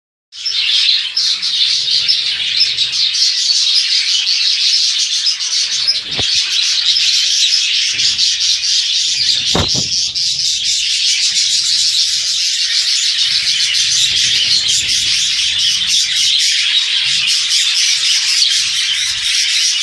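A flock of caged budgerigars and other small cage birds chattering and chirping together in a dense, continuous twitter.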